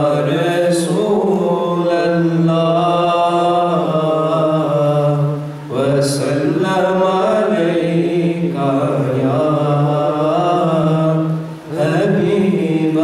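A man chanting devotional verse unaccompanied into a microphone, in long drawn-out melodic phrases that pause for breath about every six seconds, over a steady low drone.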